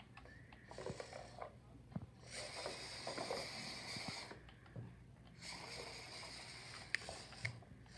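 Small VEX IQ classroom robot's electric motors whirring as it drives and pushes blocks, in two spells of about two seconds each, over a faint steady hum, with two light clicks near the end.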